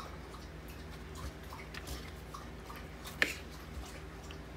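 A dog lapping water from a bowl in the background: faint, irregular wet ticks and splashes. One sharper knock comes a little past three seconds in.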